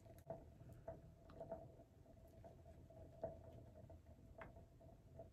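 Faint scattered clicks and crinkles of a tobacco-leaf blunt wrap being rolled between the fingers and licked to seal it, over a faint steady hum.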